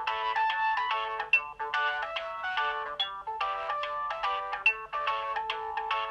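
Alcatel OT 735 mobile phone playing one of its built-in ringtones: a quick electronic melody of several notes at once over a held lower note, with a high bell-like note repeating about every second and a half.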